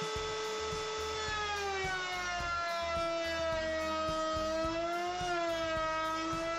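Router in a benchtop router table running with a steady high whine. About a second in, its pitch drops as the spinning bit bites into a wood strip fed along the fence, and it stays lower while the bit cuts the edge profile.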